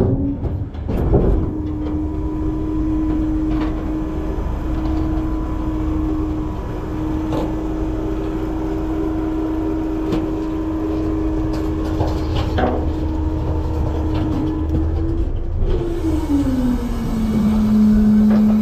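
A front-load garbage truck's engine and hydraulics run at raised revs as the packer compacts trash in the hopper, with scattered knocks and creaks from the load. Near the end the revs drop back, and the pitch falls to a lower steady idle.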